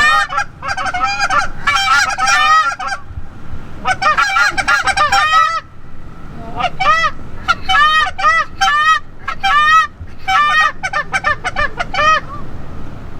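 Goose honks and clucks in quick, loud runs, about four strings of calls separated by short pauses.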